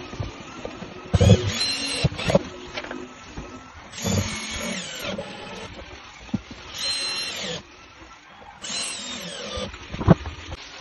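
Handheld power tool run in four short bursts, its motor pitch rising and falling, with a few sharp knocks between the runs.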